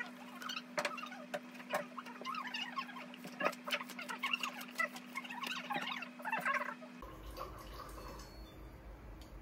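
Pen scratching and tapping on paper, small squeaky strokes and clicks over a steady low hum. It cuts off about seven seconds in, leaving faint room noise.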